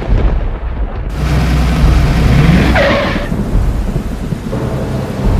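Thunderstorm sound effect: rolling thunder rumbling over rain, loudest around the middle.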